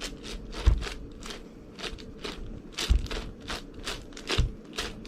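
Plastic clicking of an 11x11 Rubik's cube's layers being turned one-handed: a quick, irregular run of clicks, about three or four a second, with a few duller knocks among them.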